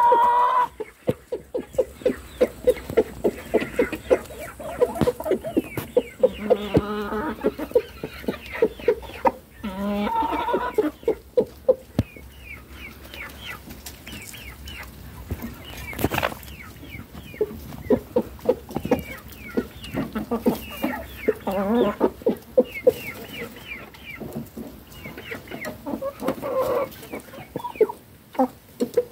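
Domestic chickens clucking while they feed, in quick runs of short, repeated clucks, with a few higher, longer calls mixed in.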